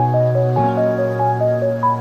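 Background music: a gentle melody of short stepping notes over held chords, the chord changing about half a second in.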